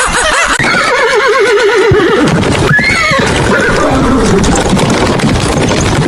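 Horse whinnying: a long trembling neigh, then another call that rises sharply about three seconds in and falls away.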